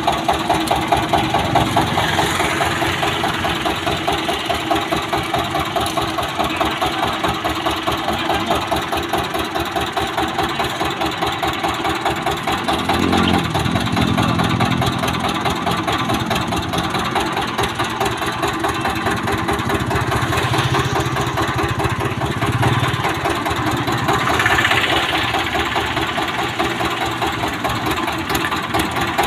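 Small engine of a sugarcane juice crusher running with a fast, even chug, turning the belt-driven steel rollers as cane stalks are fed through by hand. A deeper, steadier hum joins partway through.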